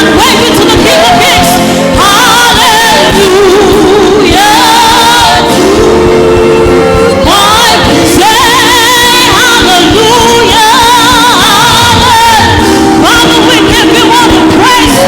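Live gospel choir singing with band accompaniment, voices and instruments loud and continuous.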